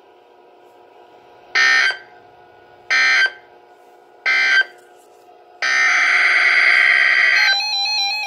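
NOAA Weather Radio EAS/SAME digital data bursts, a harsh buzzing chirp. Three short end-of-message bursts come about 1.3 s apart, marking the close of the test tornado warning. A longer data burst follows about five and a half seconds in, the header of the next alert, and near the end it gives way to a different stepping tone pattern.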